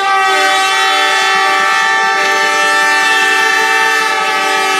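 Handheld air horns sounding in one long held blast: several steady tones at once, loud and unbroken throughout.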